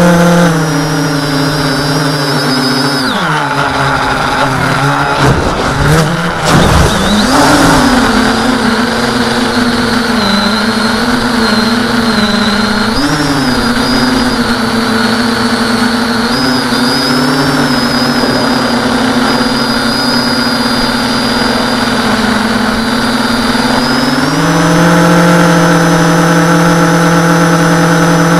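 Electric motors and propellers of a tricopter whining, heard from the craft's own onboard camera. The pitch falls about three seconds in, and a brief rush of noise with swooping pitch follows around six to seven seconds. The whine then holds steady and steps up higher near the end.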